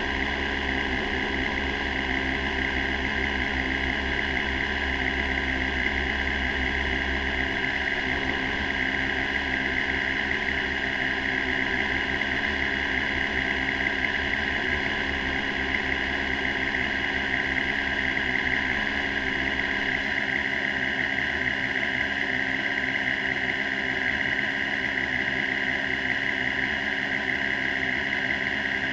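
Formula 3 single-seater's engine idling steadily at about 2,000 rpm while the car stands still, heard through the car's onboard camera with a constant hiss.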